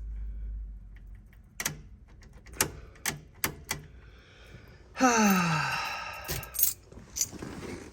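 Scattered sharp clicks and knocks from working the controls of a 1967 Pontiac Grand Prix, after a low rumble fades out in the first second. About five seconds in comes the loudest sound, about a second long and falling in pitch.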